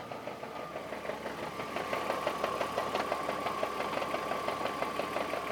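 BMW M54 3.0-litre straight-six idling with the clutch engaged, overlaid by a fast, even knocking rattle that grows louder over the first couple of seconds and then holds steady. The noise stops when the clutch pedal is pressed, and the owner thinks the dual-mass flywheel has gone.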